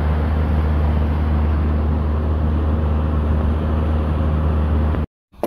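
Boat's outboard motor running steadily under way, a deep even hum under a constant rush of noise. It cuts off abruptly about five seconds in.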